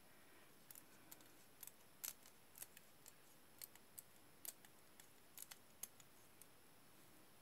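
Faint, irregular light clicks and ticks as a paper piercing tool pokes die-cut cardstock pieces out of a thin metal cutting die held in the hands.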